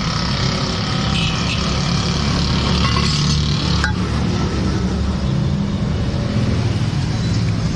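Steady low rumble of roadside traffic and vehicle engines, with a single sharp click a little under four seconds in.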